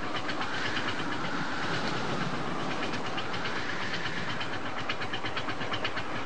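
Cartoon steam locomotive running along the track with a steady, even clatter.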